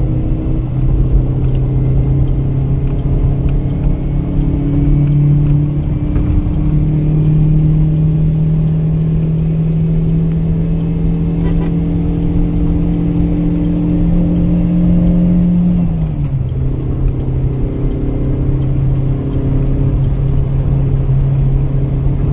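Toyota Corolla EE100 engine running under load while driving, heard from inside the car: the engine note climbs and holds high, then the revs drop quickly about 16 seconds in and settle to a steady lower note.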